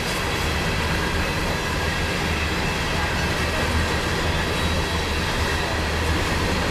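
Freight train of covered hopper cars rolling past at steady speed on curved track: a continuous rumble and clatter of wheels on rail, with faint steady high-pitched ringing above it.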